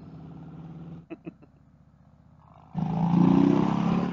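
Motorcycle engine running at steady speed. A few short clicks come about a second in, then a quieter stretch. Nearly three seconds in, a much louder engine note with heavy wind noise starts abruptly as the bike accelerates.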